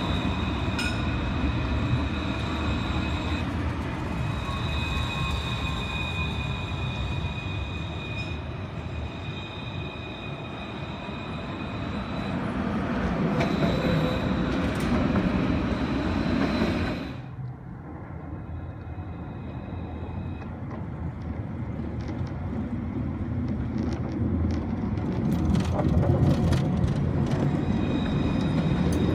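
Alstom Citadis low-floor trams running past on curved street track: a steady rumble of wheels on rail, with a steady high-pitched wheel squeal on the curves. The sound drops off abruptly a little past halfway, then the rumble of another tram builds, and the squeal returns near the end.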